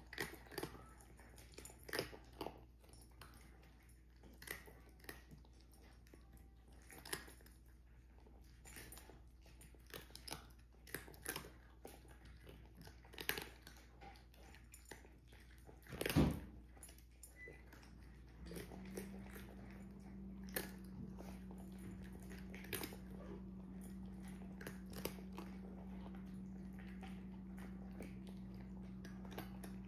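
Two cats eating from ceramic bowls: irregular crunching and clicking of chewing and of food against the bowls. One louder knock about halfway through. A steady low hum starts just after it and continues.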